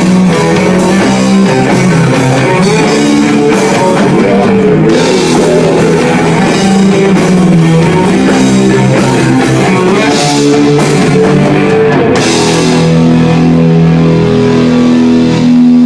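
Instrumental rock music: distorted electric guitars playing a melody over a drum kit, with no singing.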